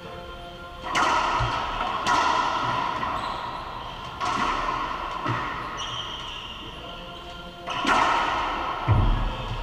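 Racquetball rally: the hollow rubber ball cracking off racquets and the court walls, each hit ringing with a long echo in the enclosed court. Four sharp hits come a second or two apart, then heavier low thuds near the end.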